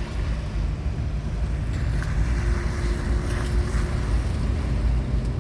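Rough storm-swell surf rushing and breaking, heavily buffeted by wind on the microphone: a deep, steady rush.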